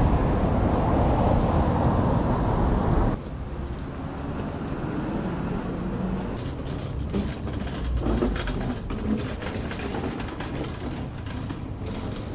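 Town street noise: a loud, even, low noise for about the first three seconds that cuts off abruptly, then a quieter steady hum with scattered clicks.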